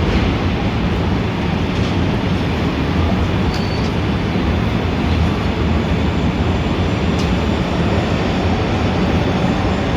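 Steady city street traffic noise, a dense continuous rumble heavy in the low end. A faint brief high squeal comes about three and a half seconds in.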